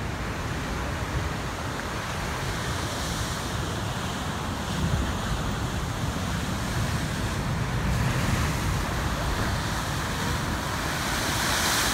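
Heavy ocean surf breaking and washing over rocks in a steady rush, with wind rumbling on the microphone. Near the end a spouting horn blows, adding a loud hiss of water forced up through the rock.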